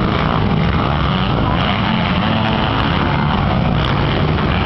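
Motocross dirt bike engines running steadily as the bikes ride around a dirt track.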